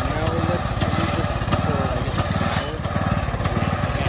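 Riding lawn mower's small engine running steadily at a set throttle, turning a jacked-up wheel with a fuel tank strapped to it.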